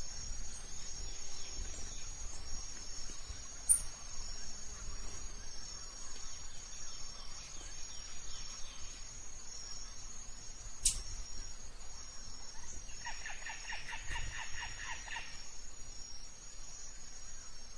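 Faint high-pitched insect chirping, steady and pulsing. About eleven seconds in there is one sharp click, and shortly after comes a brief run of rapid pulsing.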